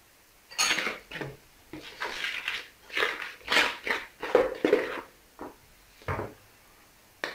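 Metal spoon stirring and scraping thick batter in a plastic mixing bowl, in a run of uneven strokes that stop about six seconds in, then a single short click near the end.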